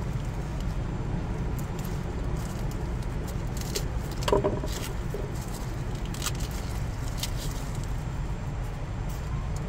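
Knife cutting garlic cloves on a wooden cutting board: scattered light taps and clicks, over a steady low rumble from the truck.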